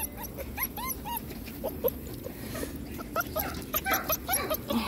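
German shepherd puppies whimpering and yipping: short, high, rising-and-falling squeaks, several a second, coming thicker in the second half.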